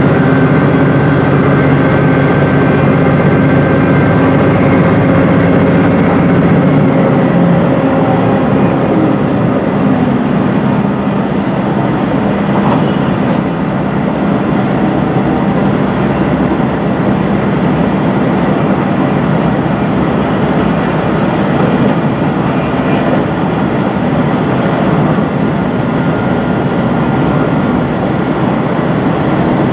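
Cabin noise of a HOT7000 series diesel express railcar running on the line: a steady rumble of the running train with a droning hum and a faint high whine. About seven seconds in, the hum and whine fade out, leaving the even rolling noise.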